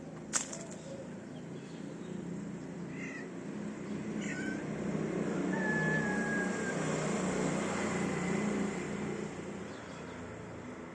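Street cat meowing in a few short calls. There is a sharp click just after the start, and a rushing noise swells and fades through the middle of the clip.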